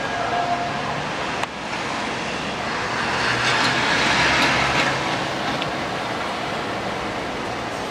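Street traffic on rain-wet roads: a steady hiss of tyres that swells for about two seconds roughly three seconds in, with a single click about a second and a half in.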